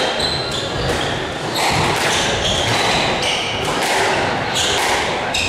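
Squash rally: several sharp smacks of the ball off the rackets and walls, and rubber-soled shoes briefly squeaking on the wooden court floor, echoing in the court.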